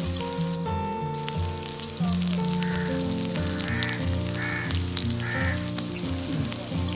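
Hot oil sizzling and crackling steadily in a miniature kadai as battered green chillies fry.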